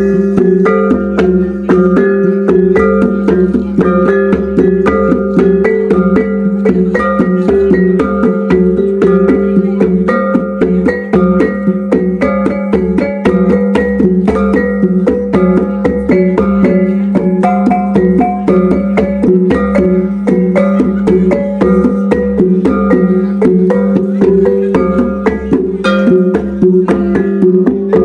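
Iban taboh: traditional gong music played in a fast, continuous stream of short ringing notes over a steady low gong ring underneath.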